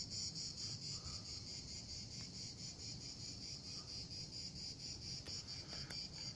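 Crickets chirping in a steady, high-pitched pulsing chorus, about five pulses a second.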